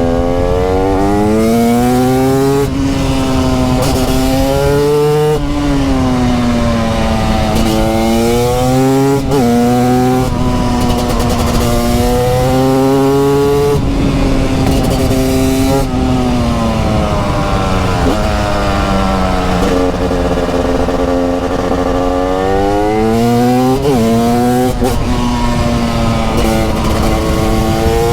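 TM SMR 300 supermoto's 300cc single-cylinder two-stroke engine, heard raw, under hard riding: it revs up through the gears and backs off again and again. The pitch climbs and falls off repeatedly with the gear changes and corners.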